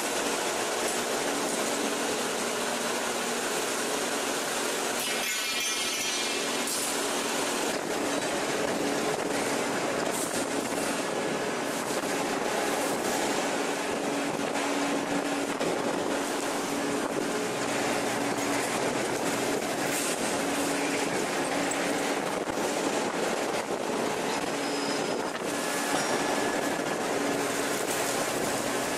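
Steady industrial noise of a hot forging press at work on a glowing ingot: a continuous machinery din with a faint low hum under it, and a brief rattle about five seconds in.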